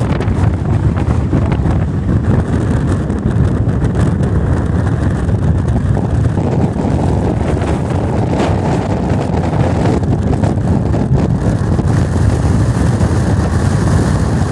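Strong wind buffeting the microphone: a loud, steady rumble of wind noise with no other sound standing out.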